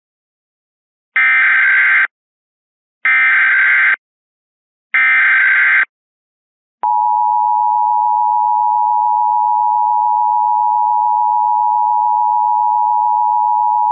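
Recreated Emergency Alert System signal: three one-second bursts of SAME header data tones, then, from about seven seconds in, the steady two-tone attention signal (853 and 960 Hz). The header encodes a Child Abduction Emergency (Amber Alert).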